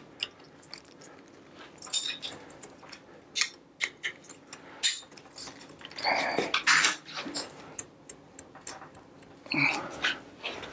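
Hand tools and metal bicycle parts clicking and clinking as the stem and handlebar are worked loose with a hex key, with a couple of short grunts of effort about six and nine and a half seconds in.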